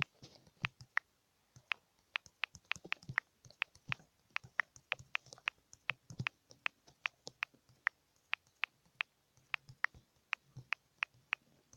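Typing a message on a phone's touchscreen keyboard: a quick, irregular run of light tapping clicks.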